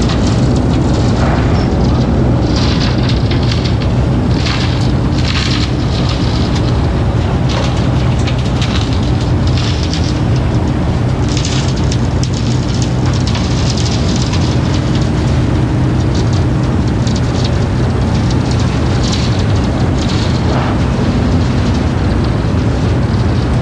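Wirtgen W 250i road planer running under load as it mills off the asphalt, its engine a steady loud drone. Over it come irregular rushes and rattles of asphalt planings pouring off the conveyor into a steel tipper lorry body.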